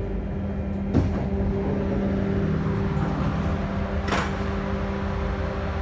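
Lisbon Metro train car heard from inside as it comes along a station platform: a steady electric hum, a single clunk about a second in, and a short burst of air hiss about four seconds in.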